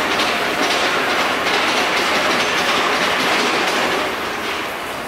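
Loud, steady clatter of nearby construction machinery, easing off a little near the end.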